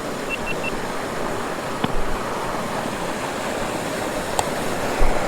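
Steady rush of a waterfall. Three short high beeps come about half a second in.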